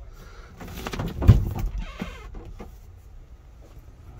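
Knocks and rustling of things being handled inside a car, with one heavy thump about a second in.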